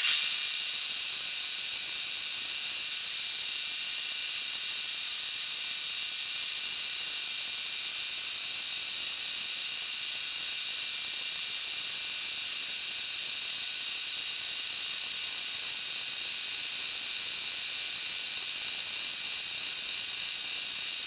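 Milling machine spindle running with an end mill in the cut, a steady high-pitched whine that starts abruptly and holds an even level.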